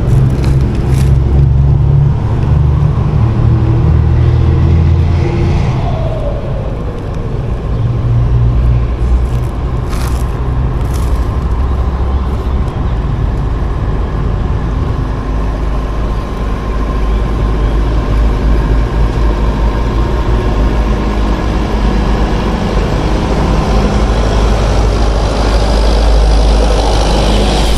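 An engine running steadily close by, a low hum whose pitch shifts now and then, with a few short clicks about ten seconds in.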